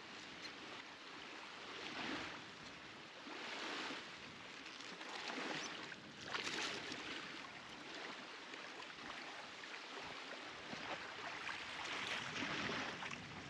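Small waves lapping in shallow water at a sandy shoreline, in faint washes that swell and fade every second or two.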